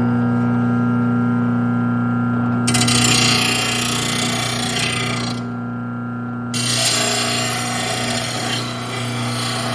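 VEVOR 2/3 HP electric lawn mower blade sharpener running with a steady hum, its grinding wheel biting into the steel mower blade in two long grinding passes, one about three seconds in and one about seven seconds in. The passes take metal off the heavy side of the blade to balance it.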